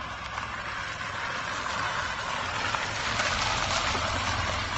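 A car on a gravel road: tyre noise on the gravel and a low engine rumble, growing louder about three seconds in as it comes alongside.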